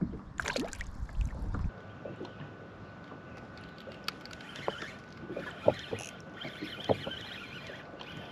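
Wind buffeting the microphone, which cuts off abruptly under two seconds in. After that a spinning reel is wound, with faint whirring and scattered sharp clicks and knocks on the kayak.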